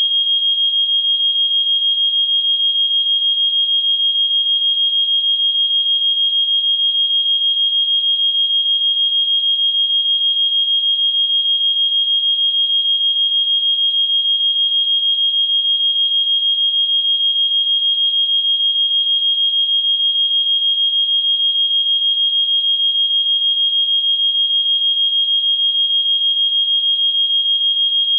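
A single continuous high-pitched electronic tone, steady in pitch and unbroken, with a slight fast flutter in loudness.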